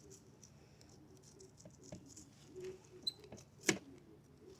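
Scattered small clicks and scrapes of a fillet knife sliding along a redfish's backbone, with one sharper click about three and a half seconds in.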